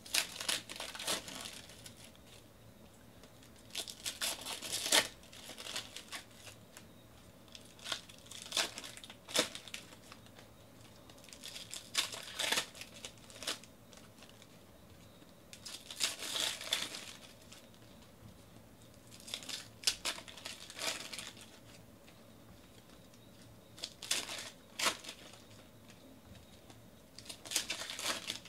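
Foil wrappers of Donruss Optic baseball card packs being torn open and crinkled by hand, one pack after another, with a burst of crinkling about every four seconds.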